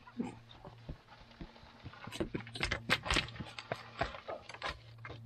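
Slate stones clinking and knocking together as they are handled and passed down off a dry-stone wall: an irregular run of sharp knocks and clicks, busiest in the second half, over a low steady hum.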